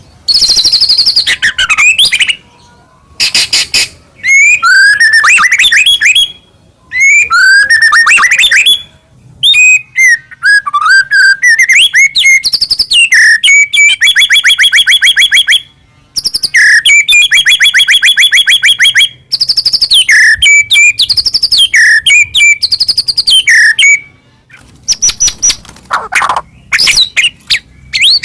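White-rumped shama (murai batu) singing loud, varied song in phrases of a few seconds with short pauses between them: sweeping whistled notes, harsh chatters, and long rapid trills. This is the full song used as a lure to provoke other shamas to sing.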